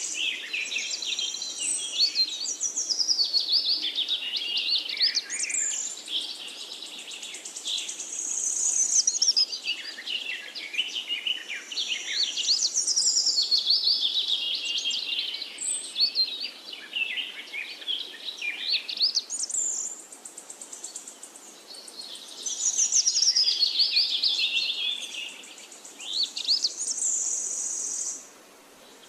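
Several birds singing at once in a forest chorus: overlapping chirps, fast trills and sweeping whistled notes, high-pitched, over a faint steady background hiss. The chorus drops away sharply near the end.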